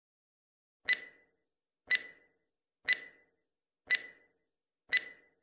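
Countdown timer sound effect: five identical short, sharp ticks with a brief ring, one a second.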